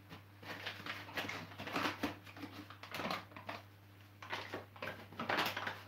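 Paper flour bag rustling and crinkling in several short bursts as it is handled and flour is measured out, over a steady low appliance hum.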